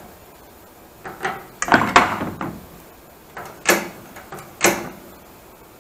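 A few sharp knocks and clunks: a loud cluster about two seconds in, then two single knocks near the end.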